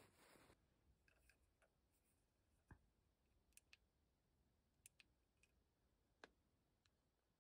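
Near silence, broken by a few faint, scattered clicks.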